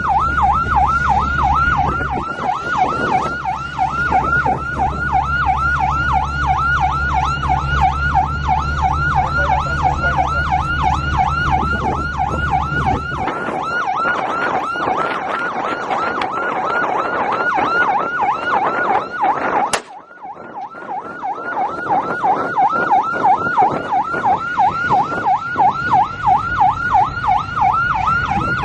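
Patrol boat's electronic yelp siren wailing fast up and down, about three or four sweeps a second, over a low engine drone that stops about halfway through. A sharp click and a brief gap about 20 seconds in, then the siren carries on.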